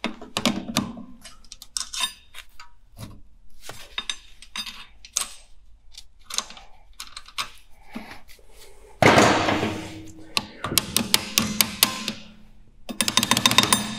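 Pliers and steel drum-brake parts (the self-adjuster wedge, strut and springs) clicking and clinking as they are worked into place. There is a louder stretch of noise about nine seconds in and a quick run of clicks near the end.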